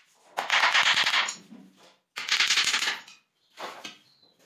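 Claw hammer tapping a small nail into a laminated particleboard panel: two runs of fast, light blows about a second each, then a few softer knocks near the end.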